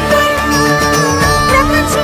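Background music for a dance: a long held, wavering melody line over low drums.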